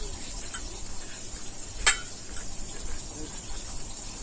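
Hands mixing rohu fish steaks with a turmeric and ginger-garlic marinade in a stainless steel bowl, with one sharp clink about two seconds in.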